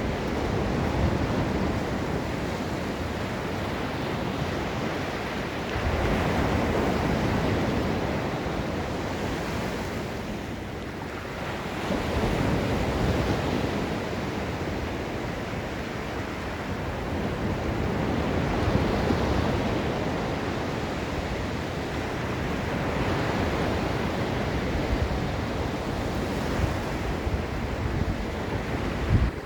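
Ocean surf breaking on the beach, each wave swelling and easing every few seconds, with some wind on the microphone.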